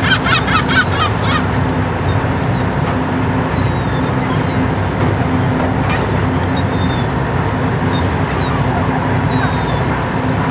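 Gulls calling over the net: a burst of loud calls in the first second or so, then fainter, short falling calls now and then. Under them runs the boat's engine, with a steady hum, and the wash of water.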